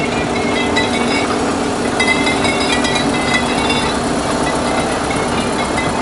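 Caterpillar 247B compact track loader's diesel engine running steadily as the machine drives past on its rubber tracks, with intermittent high squeaks from the track undercarriage.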